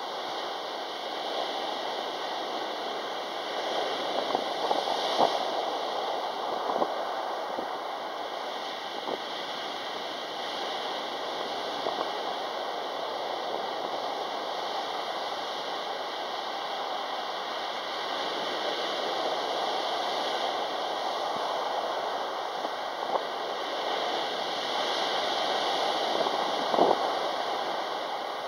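Sea waves breaking and washing up a pebble beach in a steady rush of surf. It swells louder twice, about four seconds in and again near the end, with a few sharp clicks.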